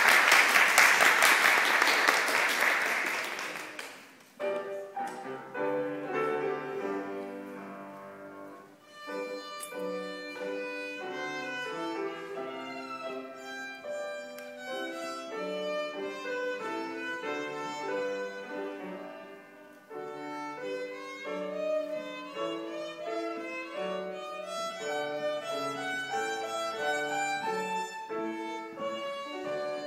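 Audience applause that fades out after about four seconds, then a piano introduction. A violin enters about nine seconds in and plays a melody over the piano accompaniment.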